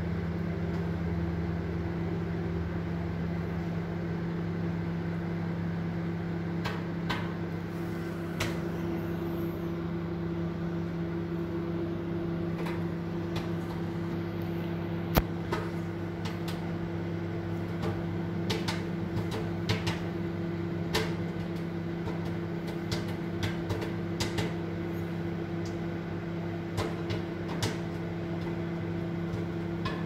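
Microwave oven running with a steady hum while popcorn kernels inside start to pop: scattered single pops begin several seconds in and come more often toward the end.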